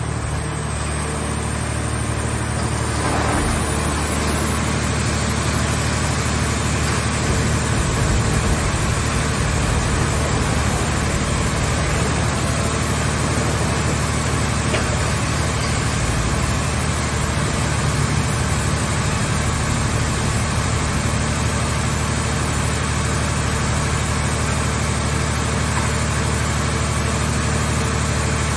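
Scrap car baler's hydraulic power unit running, a steady loud machine hum that gets slightly louder about three seconds in.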